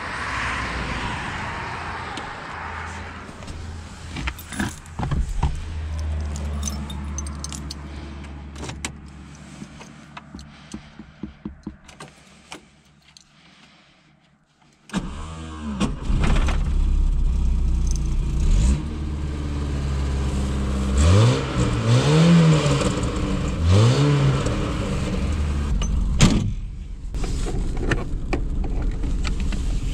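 VAZ-2108's 1.5-litre engine starting about halfway through, then idling with two short blips of the throttle. Before the start there are scattered clicks and handling sounds over a low hum that fades away.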